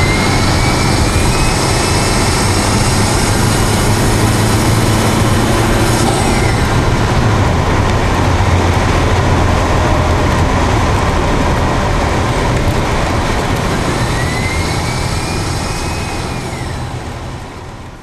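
Daihatsu Copen's engine intake heard from inside its stock air cleaner box under acceleration: a loud rushing intake noise over a low rumble. A thin whine climbs in pitch and breaks off about six seconds in, then climbs again and drops near the end as the sound fades out.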